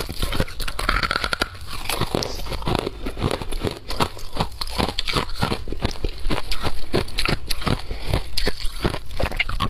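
Ice being bitten and chewed up close, a dense run of sharp, crisp crunches one after another.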